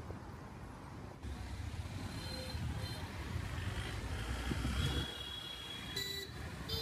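Road traffic: vehicle engines and tyres making a steady low rumble, with a few short high-pitched tones over it, one held for under two seconds.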